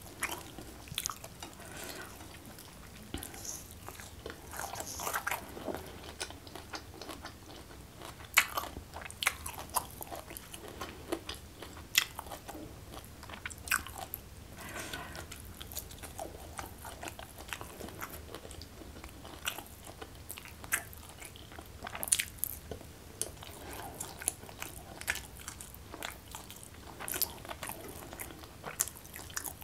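Close-miked chewing and crunching of a person eating a rice meal by hand, with irregular sharp clicks and smacks throughout.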